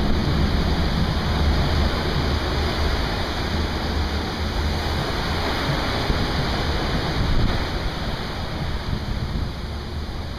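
Seawater rushing and washing along the hull of a moving research ship, with a steady low rumble underneath.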